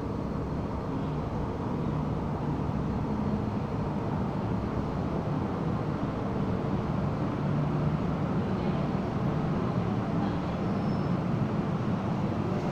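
MTR M-Train electric multiple unit at an underground platform: a steady rumble with a low hum, heard from behind the platform screen doors.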